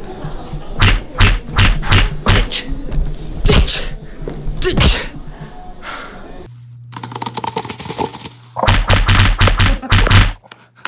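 Repeated thumps and slaps of a hand hitting and grabbing a handheld camera right at its microphone, in two runs with a short lull a little past the middle.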